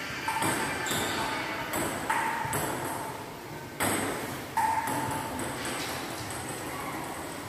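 Table tennis ball clicking off paddles and table in a rally, a string of sharp clicks about half a second to a second apart, each hit ringing briefly and echoing off the hard walls and tile floor.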